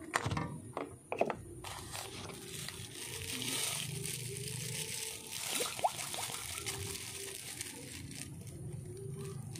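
Thin clear plastic bags crinkling and rustling as they are handled and filled with cooking oil, with a few sharp crackles in the first second or so.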